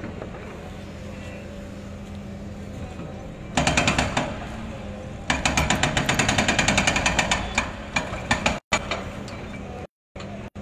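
Powered demolition hammer going in two bursts of rapid, evenly spaced blows, about six or seven a second: a short burst, then a longer one of about three seconds. A steady low engine hum runs underneath, and the sound cuts out briefly a few times near the end.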